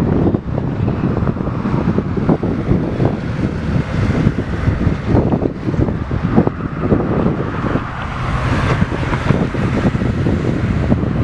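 Tasrail freight train rolling past in a steady, heavy rumble with irregular knocks, and wind buffeting the microphone.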